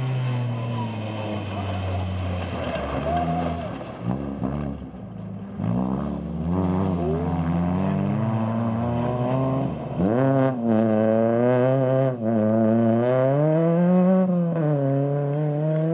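Rally car engines revving hard on a gravel stage, the pitch climbing and dropping again and again through gear changes and lifts as the cars pass.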